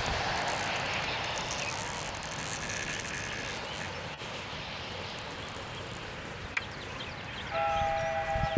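Distant engine drone, steady and slowly fading, with a few faint bird chirps. Near the end a steady two-note tone sounds for about a second.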